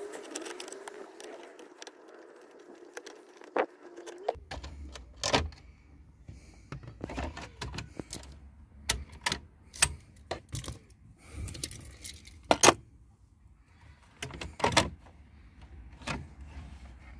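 Irregular clicks, taps and rattles of hard plastic trim as a Skoda Octavia mk2's steering column shroud is unscrewed and worked loose from the column. Several sharp knocks stand out in the middle of the stretch.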